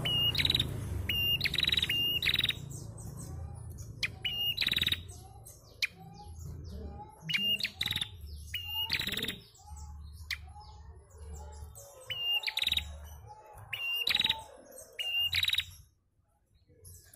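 Caged female prenjak calling, giving short sharp high chirps in quick clusters with brief pauses between them. It falls silent near the end, with a low rumble under the calls.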